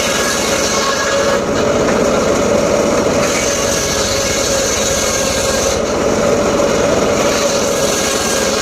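Homemade engine-driven circular saw running steadily with its blade cutting through mahogany timber.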